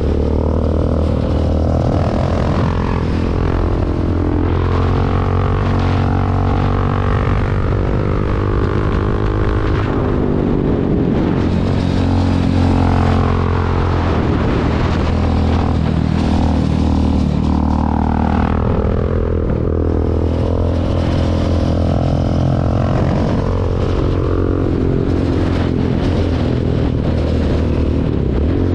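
KTM 690 Duke's single-cylinder engine under way, its note rising and falling repeatedly with throttle and gear changes, with a marked drop in pitch about ten seconds in and again near twenty seconds.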